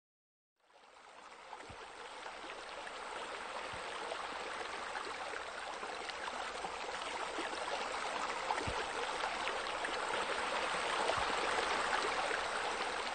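Steady rush of running, splashing water, fading in about half a second in and growing slightly louder.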